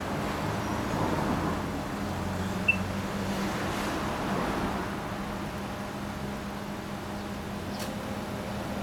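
Honda Fusion 250 scooter's single-cylinder four-stroke engine idling steadily through an aftermarket Real Speed exhaust, with a single sharp click a little under three seconds in.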